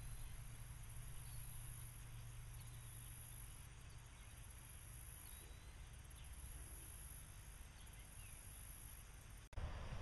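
Faint rural field ambience: a low steady rumble under a thin, high insect drone that comes and goes.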